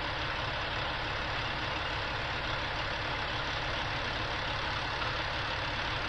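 Semi truck diesel engine idling steadily, a constant low rumble heard from inside the cab.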